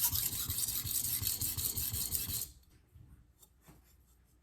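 VG-10 steel santoku blade being ground on a coarse 400-grit vitrified diamond stone in quick back-and-forth strokes to set a new bevel: a scratchy rasp that stops abruptly about two and a half seconds in, followed by a few faint clicks.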